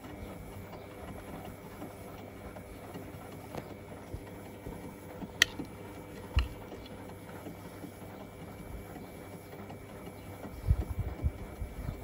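Beko WM8120 front-loading washing machine running a wash, with a steady motor hum as the drum turns through soapy water. There are two sharp clicks about halfway through and a run of low thumps near the end.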